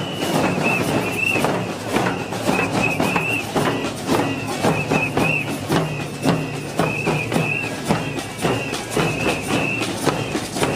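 Group of marchers beating hand-held frame drums with sticks in a steady samba-style rhythm, with a whistle trilling in short repeated bursts over the drumming.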